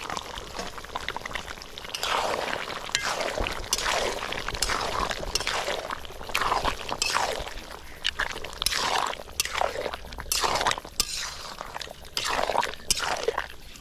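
Thick pork curry being stirred in a cooking pot, in repeated wet, squelching strokes.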